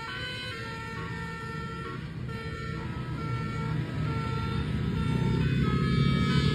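Bus telolet horn, a Basuri multi-tone air horn, playing a melody of short notes that step from pitch to pitch. Underneath, the bus engine rumbles and grows louder over the last few seconds.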